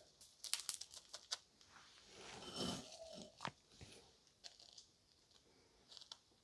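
Faint crunching and crackling of crushed chocolate biscuit crumbs being handled and pressed onto a buttercream cake. A quick cluster of small crunches comes in the first second and a half, then a few scattered clicks.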